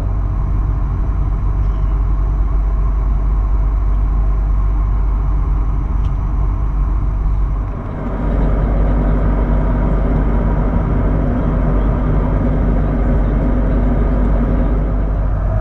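Steady cabin noise of an Airbus A310-300 in flight, heard from a window seat beside the engine: a low jet-engine drone and airflow rumble. The noise dips briefly about halfway through and then carries on a little brighter.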